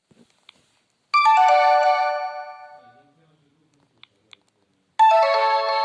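Sony Ericsson W595 mobile phone playing two of its built-in sound effects through its speaker. Each is a short chime, a quick run of falling bell-like notes that rings and fades, the first about a second in and the second near the end. Faint clicks come before each.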